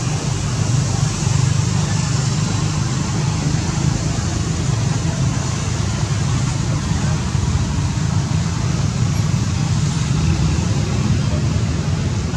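Steady loud rumbling noise with a hiss above it, even throughout, with no distinct knocks or calls standing out.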